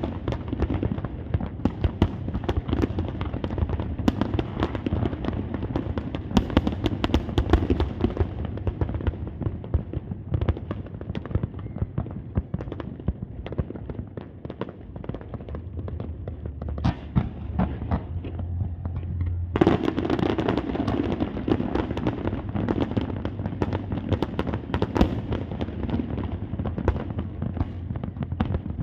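Fireworks display: a continuous barrage of bangs and crackles that thins out past the middle, then swells suddenly into a louder, denser volley about two-thirds of the way through.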